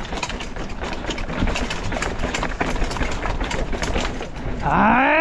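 Mountain bike rattling over a rough, muddy trail: chain and frame clatter with many fine clicks. Near the end comes a short, loud whoop that rises sharply in pitch.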